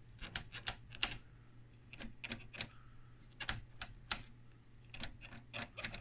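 Rotary attenuator (range) switch of a Brüel & Kjær type 2607 measuring amplifier turned step by step through its detent positions: a run of sharp, irregularly spaced clicks.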